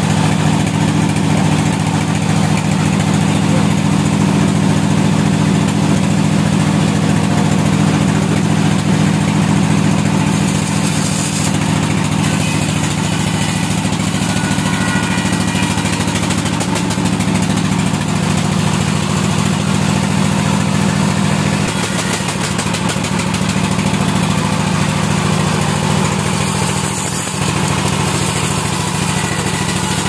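Vertical band sawmill running steadily, its motor humming low under the hiss of the blade as a short log is pushed through it, with small changes in the sound as the cut goes on.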